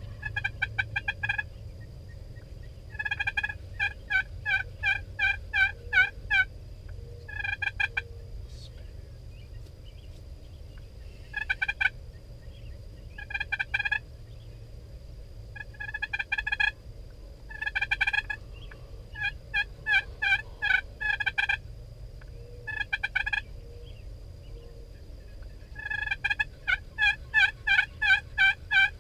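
Wild turkey toms gobbling again and again: rapid rattling gobbles, about ten in all, some running together, with the longest run near the end. A low rumble lies under them.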